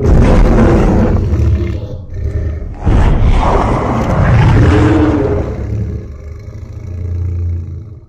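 Custom kaiju roar sound effect for a fictional T-Rex/Godzilla hybrid, layered from dinosaur, lion and tiger roars. It is two roars: a first one of about two seconds, then a longer one from about three seconds in that fades into a low rumble near the end.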